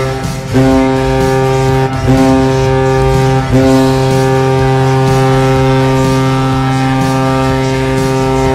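Hockey arena goal horn blaring in blasts: one steady pitched air-horn tone, cut off and restarted about half a second, two and three and a half seconds in, the last blast held long.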